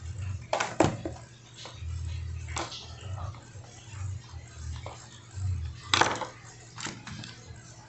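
Clicks and clatter of tools and metal parts being handled while an angle grinder is taken apart, with the loudest knocks just under a second in and about six seconds in.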